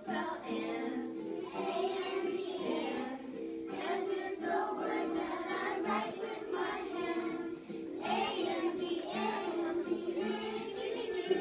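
A group of young children singing a song together over musical accompaniment.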